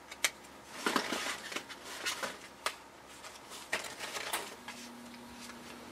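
Small paperboard vacuum-tube boxes rustling and clicking as hands sort through a carton full of them, with a handful of sharp taps and scrapes spread out irregularly.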